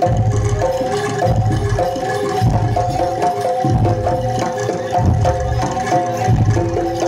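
Traditional Javanese jaranan music played live by a gamelan ensemble: hand drums keep a steady beat under a short melody of pitched metal notes that repeats over and over.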